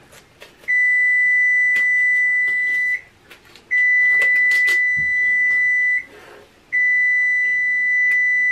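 An electronic beeper sounds three long, steady, high-pitched beeps, each about two seconds, with short pauses between. Light knocks and clicks come from a plastic-wrapped springform pan being handled.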